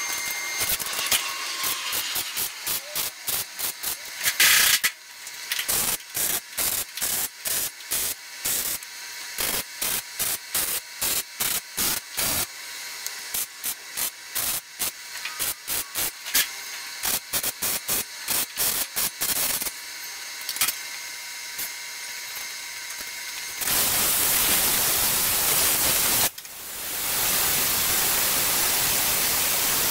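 MIG welder stitch-welding a steel roof patch in short bursts, a crackling arc sounding in quick pulses about twice a second with brief pauses between runs. In the last few seconds a steady hiss takes over.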